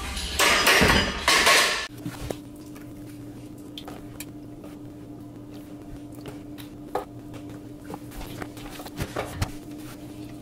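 A loud burst of noise lasts about two seconds, then a steady low hum with scattered light clicks and taps as liquid egg whites are poured into a frying pan and stirred with a silicone spatula.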